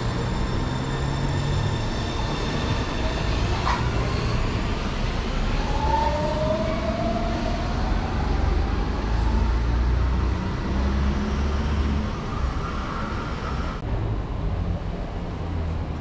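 Brasília Metro train running, with a steady low rumble and a rising whine about six seconds in.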